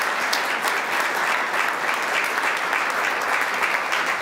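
Audience applauding steadily: many hands clapping together in a continuous wash.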